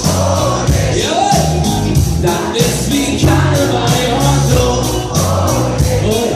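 Live rock band playing with a singer over drums, bass and guitar, with a steady beat and regular cymbal strikes.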